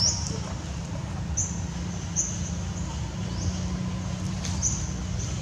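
A few short, high-pitched rising squeaks from an animal, one at the start and others spaced about a second apart, over a steady low rumble.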